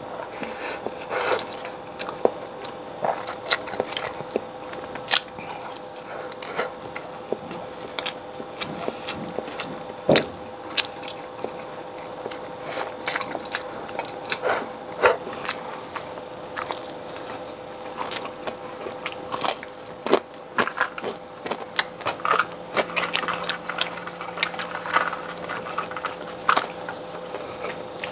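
Close-miked eating of fried chicken: a person bites and chews, with many irregular crunches and smacks. A faint steady hum runs underneath.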